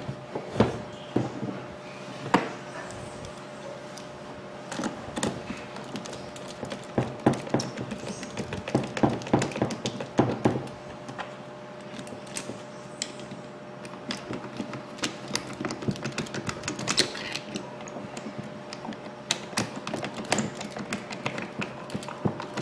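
Irregular clicks, taps and knocks of a Makita hammer drill's casing and parts being handled and fitted back together, with a screwdriver turning screws into the housing. A faint steady hum runs underneath.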